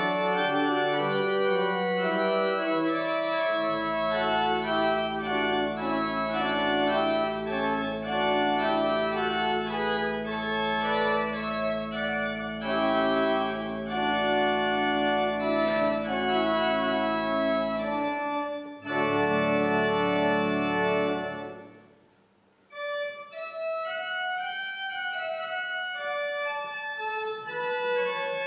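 Church pipe organ playing sustained chords with moving upper voices over a long held bass pedal note. The music breaks off briefly about three-quarters of the way through, then resumes more softly without the bass.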